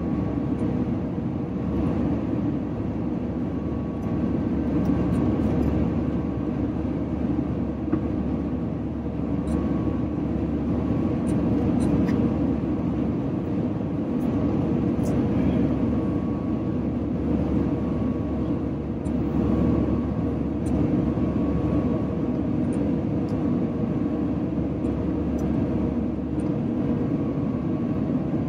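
Steady cabin rumble of an Airbus A350-900 descending on approach, heard from a window seat beside the wing: airflow noise and its Rolls-Royce Trent XWB turbofan running, with a faint steady hum over the deep rumble.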